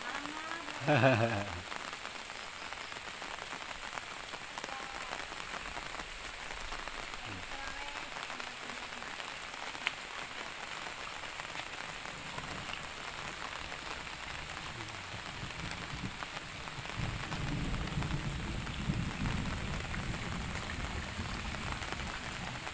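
Light, steady drizzle falling on a pond and wet ground. A low rumble swells for a few seconds in the later part.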